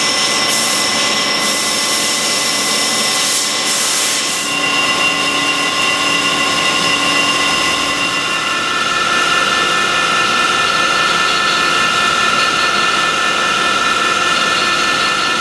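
Machine-shop machinery running steadily, with several high whining tones over a constant noise; the whine changes pitch about four seconds in and again about eight seconds in, as a CNC machine's spindle does when its speed changes.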